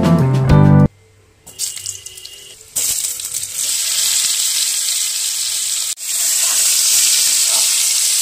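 Boiled potatoes sizzling as they fry in hot oil in a pan: a steady, loud sizzle that starts about three seconds in, after background music stops within the first second.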